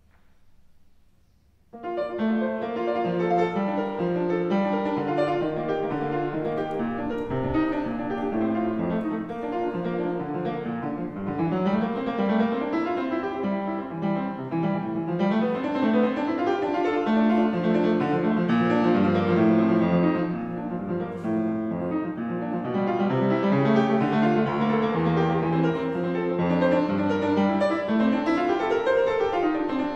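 Solo upright piano playing, starting about two seconds in after a moment of near silence, with rising and falling runs.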